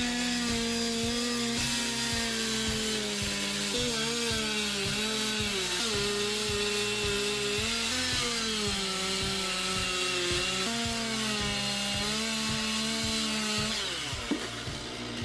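Chainsaw running under load, cutting wood, its engine pitch dropping and rising every second or two as the cut bogs it and the throttle is worked. Near the end the engine winds down as the throttle is let off.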